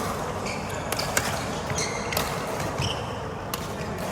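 Badminton rally: rackets striking the shuttlecock with sharp cracks about every second, with short sneaker squeaks on the court floor in between.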